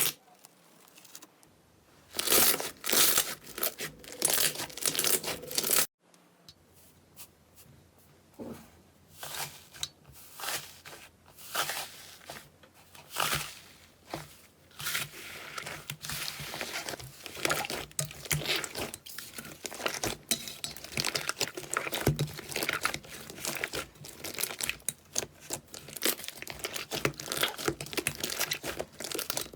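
Slime being squeezed, stretched and pressed by hand, making dense crackling, crinkly clicks and pops. It breaks off sharply about six seconds in, then starts again quieter and grows denser.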